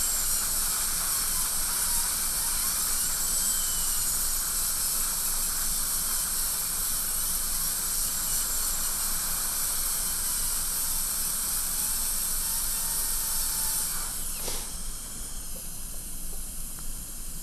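High-speed dental handpiece with a bur running against a lower front tooth while it is bevelled for a composite filling: a steady high hiss with a faint whine that shifts in pitch. About fourteen and a half seconds in the drill stops, and a softer hiss carries on.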